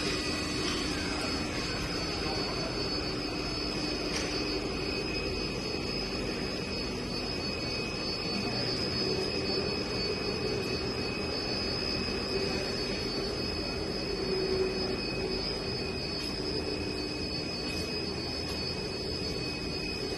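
Steady industrial machinery noise from a running graphite push boat furnace line: a constant hum with high, unchanging whines over it.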